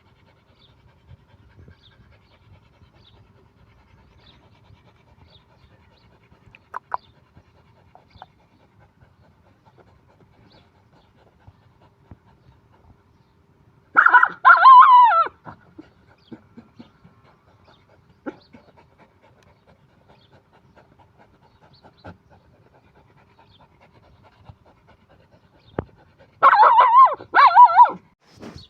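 A puppy crying out in two high, wavering whines, each about a second and a half long, one midway and one near the end.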